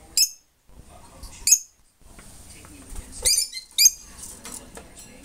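Lovebirds giving a handful of short, sharp, high-pitched squeaky chirps, the loudest ones in a quick pair a little past the middle.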